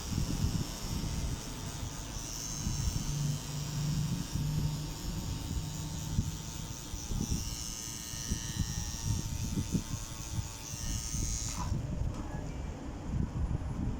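Electric tattoo machine buzzing steadily, stopping suddenly near the end, over low handling rumble.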